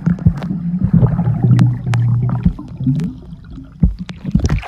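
Muffled underwater sound in a swimming pool, heard through a submerged microphone: a low steady hum for the first couple of seconds, with scattered sharp clicks and bubbling.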